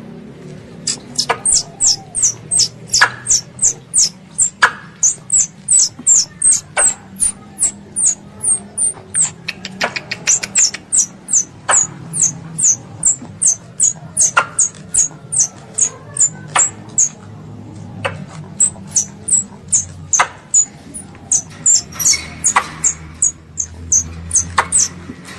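Young squirrel calling for its mother: a rapid series of short, high, falling chirps, about three a second, with brief pauses and occasional sharp clicks.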